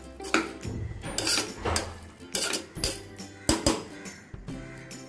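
A metal spoon stirring a thick, wet tomato-onion and soya-chunk mixture in a pressure cooker, scraping and clinking against the pot's sides in separate strokes about every half second to a second.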